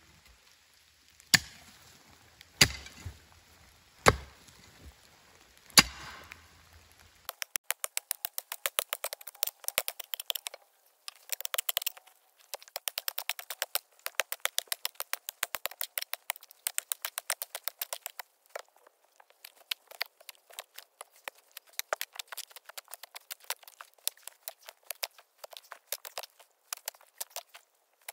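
A trail-building hand tool chopping into dirt: five sharp strikes about a second and a half apart. Then, after a cut about seven seconds in, long runs of rapid, even ticking that stop and start.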